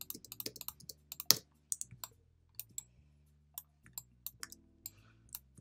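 Irregular clicks of a computer mouse and keyboard as a 3D model is worked on in Maya, with one louder click a little over a second in.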